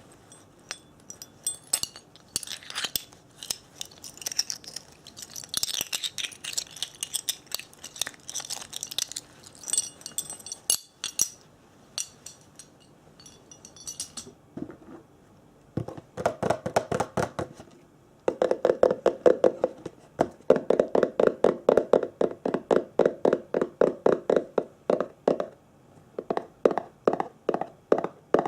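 ASMR trigger sounds made by hand: light clinks and crisp crinkling with small ringing tones for about the first half, then, after a short pause, rapid steady tapping on a hollow-sounding object, about five taps a second, to the end.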